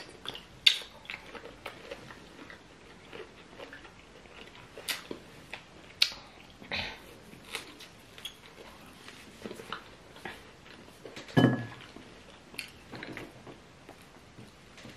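Eating sounds from people eating fufu and chicken pepper soup by hand: wet mouth smacks and sucking on a chicken bone, with short clicks scattered through, the loudest about eleven seconds in.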